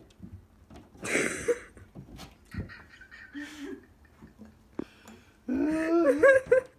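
Cats chasing a laser dot, with scattered thumps and scrabbles from their paws landing and hitting the wall, and a noisy rush about a second in. Near the end comes about a second of a loud, wavering, pitched vocal cry.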